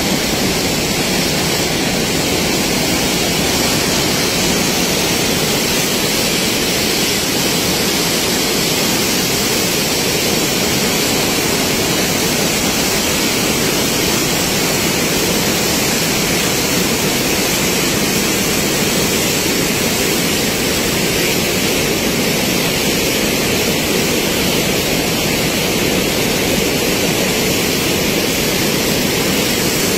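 Muddy floodwater rushing past in a fast torrent, a loud, steady noise without a break.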